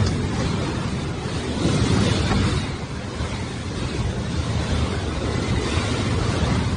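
Hurricane winds blowing hard and buffeting the microphone with a deep rumble that swells and eases in gusts.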